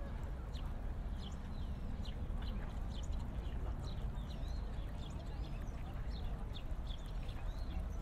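Small birds chirping, short high calls about two a second, over a steady low rumble and faint distant voices.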